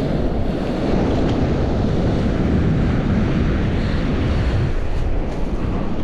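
Strong wind buffeting the microphone: a loud, steady low rumble with no clear tones or knocks.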